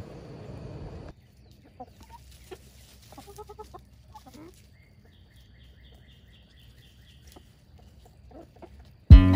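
Domestic hens clucking in short bursts, with a faint, high, rapid twittering in the background. Near the end, loud acoustic guitar music cuts in.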